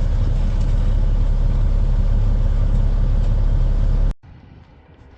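Heavy diesel engine running steadily, a deep rumble. It cuts off suddenly about four seconds in, leaving a much quieter background.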